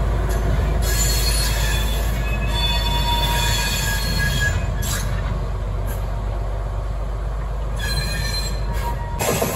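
Small diesel locomotive and coach rounding a curve, the wheel flanges squealing against the rail in several high, ringing tones that come and go over the train's low running noise. It cuts off suddenly near the end.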